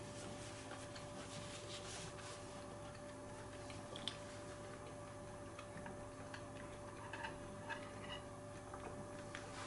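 Quiet table sounds of a meal: a sharp click of metal chopsticks about four seconds in, then a few light clinks late on as the stainless chopsticks are set down against a spoon, over a steady faint hum.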